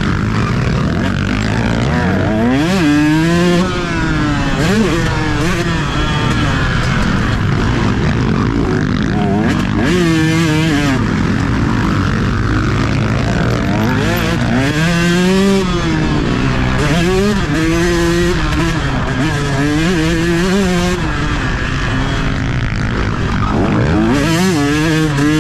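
Two-stroke motocross bike engine heard from the rider's helmet chin mount, racing hard with the throttle opened and closed over and over. Its pitch climbs and drops several times in a row as the rider accelerates, shifts and backs off into turns.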